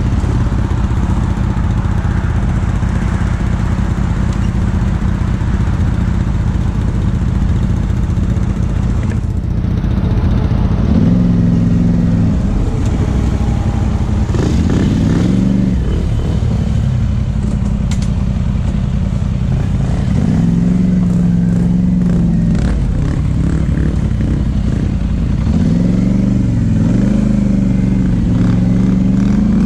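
ATV engine running at idle, then revving up and back down four times as the quad pulls away on a rocky trail.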